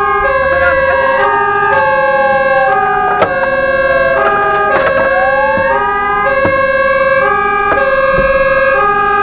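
Fire engine emergency sirens sounding together: a hi-lo two-tone siren switching about every half second, over a wail that slides down for about five seconds and then rises again, with steady high tones running underneath.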